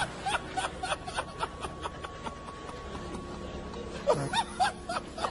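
Audience laughter: a rhythmic run of short ha-ha bursts that fades around the middle and picks up again near the end.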